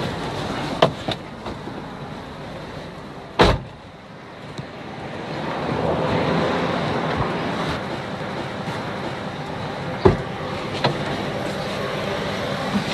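Steady vehicle and street noise that swells about six seconds in, with two sharp thumps: one about three and a half seconds in and one about ten seconds in.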